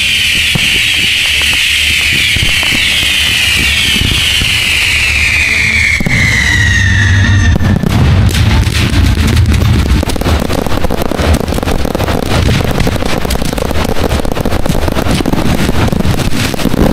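A long high tone slides slowly downward over the first seven seconds. Then comes a fireworks finale: many shells bursting in rapid succession with dense crackling and a low rumble.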